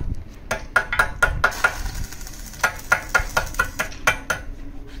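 Sharp metallic taps and knocks on a small steel box being tack welded, coming in two quick runs of several strikes each, with a short hiss of welding between them.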